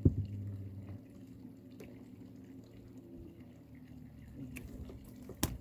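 Water dripping and trickling, over a steady low hum that fades about a second in; a sharp knock near the start and another near the end.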